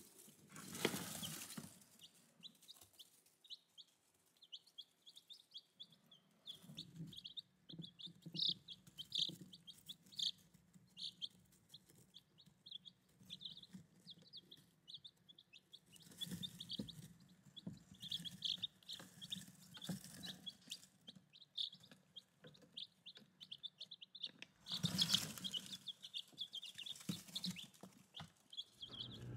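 Newly hatched Rhode Island Red chicks peeping: a steady run of short, high cheeps, faint throughout. A few brief rustling bursts come about a second in, about halfway through and near the end.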